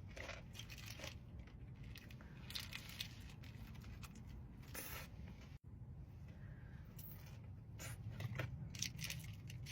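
Soft, scattered crinkling and tearing as the wrapped burger and its wrapping are handled, over a low steady hum.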